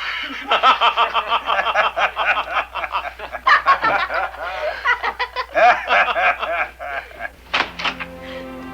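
Several people laughing together in a loud, long burst. Near the end a few sharp knocks sound and music begins.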